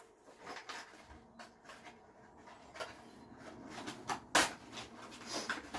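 Rummaging in a cardboard toy box: scattered rustles and small clicks of cardboard and plastic packaging being handled, with one sharper knock about four seconds in.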